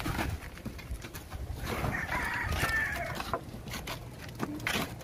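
A rooster crowing once, about two seconds in, over the scraping of shovels spreading wet concrete.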